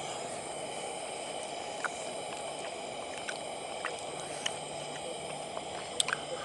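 A spoon scooping chili from a squash bowl, with a few light clicks and squishes. A steady outdoor background hiss with a faint high whine runs underneath.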